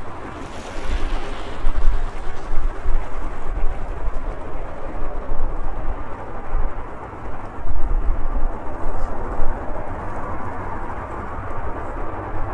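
Airliner noise: a steady rush with a deep rumble underneath, swelling and easing unevenly in loudness.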